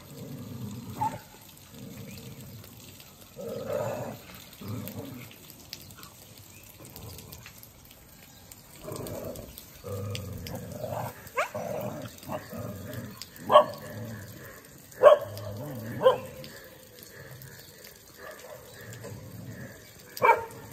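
Street dogs fighting and barking, with a run of sharp, loud barks in the second half, about a second or two apart.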